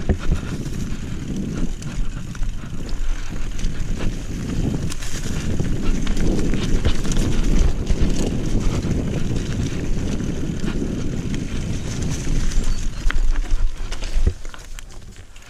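Mountain bike riding fast down a trail: heavy wind rumble on the camera microphone over tyre noise, with scattered clicks and rattles from the bike over rough ground. The noise drops off about a second before the end as the bike slows.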